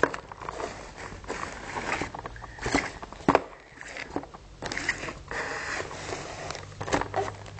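Handling noise: a plastic-windowed toy box and the camera being moved about, with scattered knocks, clicks and rustles over a low steady hum.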